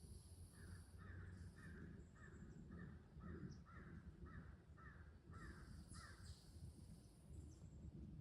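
A bird calling faintly in a repeated series of about a dozen short notes, roughly two a second, stopping about six seconds in.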